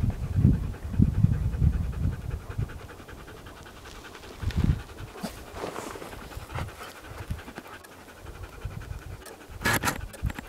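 A dog panting, with a short louder burst near the end. Low thuds sound through the first couple of seconds.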